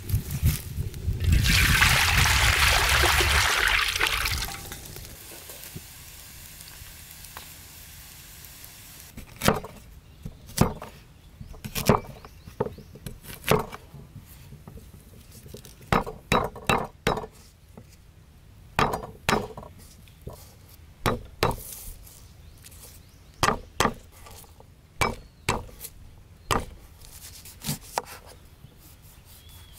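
A loud hiss for about three seconds near the start, then a cleaver knocking on a wooden chopping board, single strokes and quick runs of two to four, as ginger and a lime are sliced.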